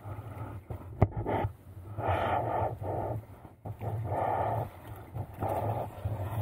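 A large Newfoundland-poodle cross dog panting heavily in rough breaths, close to the microphone.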